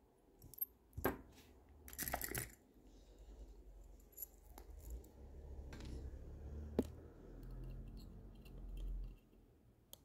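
Faint small clicks and scrapes of a fine watchmaker's screwdriver working a threaded screw on a Seagull ST36 mechanical watch movement, with one sharper click about two-thirds of the way through and a low handling rumble in between.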